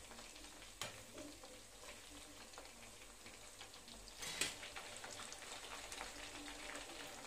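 Marinated chicken pieces sizzling and crackling as they deep-fry in oil at medium heat, stirred with a slotted metal spoon. There is a light tap just under a second in and a sharper clink about four and a half seconds in.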